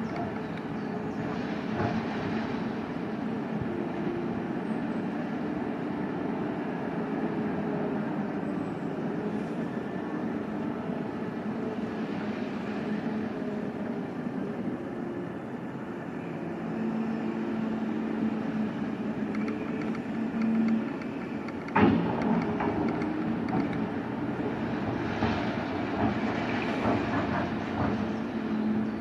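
Liebherr R 9350 mining excavator at work, its engine running steadily while it digs and swings. A single sharp knock about 22 seconds in, and a spell of rock clatter near the end as the bucket digs into the face.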